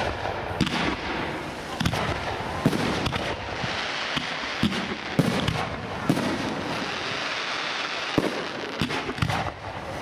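Professional fireworks display: a rapid, irregular run of sharp bangs from launching and bursting shells over a continuous hiss.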